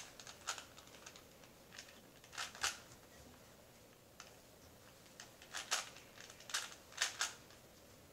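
3x3 Rubik's cube turned by hand: sharp plastic clicks of its layers turning, coming singly and in quick clusters of two or three with pauses between.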